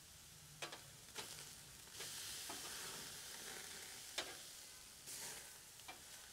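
Marinated skirt steaks sizzling over charcoal as they are flipped with metal tongs, with about five sharp clicks of the tongs. The sizzle swells about two seconds in and fades a little before the end.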